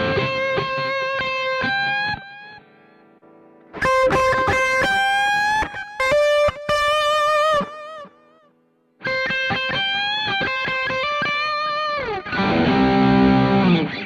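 Electric guitar played through a Zoom G1 Four multi-effects pedal on its Lead BGN preset, a distorted lead tone with a Tube Screamer on. It plays sustained single-note lead phrases with bends in three bursts with short pauses between, and the amp cab simulator is switched off partway through. It ends on a louder, noisier distorted chord.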